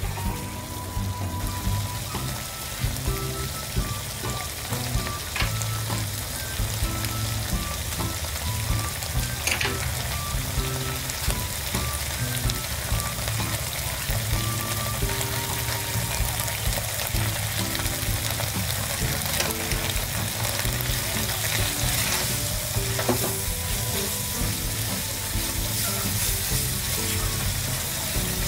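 Khao soi curry paste and coconut milk sizzling as they fry in a nonstick pan, with a silicone spatula stirring and scraping through the paste.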